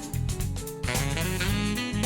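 Jazz music with a saxophone lead over bass and drums.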